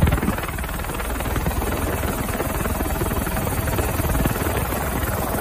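Helicopter rotor and engine noise heard from aboard the aircraft: a steady, fast rhythmic chop.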